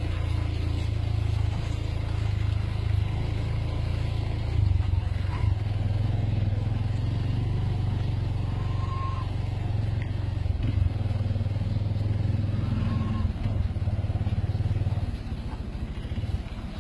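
Engine of a 4x4 vehicle driving off-road: a steady low drone that drops in level near the end.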